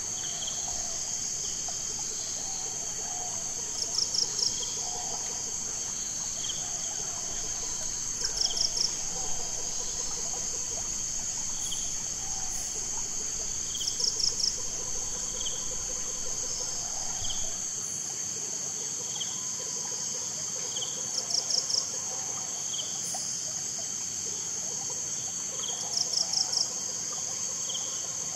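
Steady chorus of insects in grassland. A louder chirp of three or four quick pulses repeats about every four to five seconds, with faint higher ticks about once a second.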